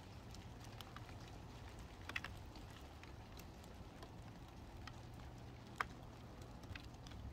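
Light rain: scattered raindrops ticking faintly, with a couple of sharper ticks about two and six seconds in, over a low rumble.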